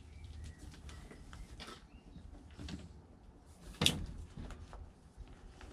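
Faint rustling and light knocks of a plastic plant pot and compost being handled while a tomato plant is set into a grow bag, with one sharper knock about four seconds in.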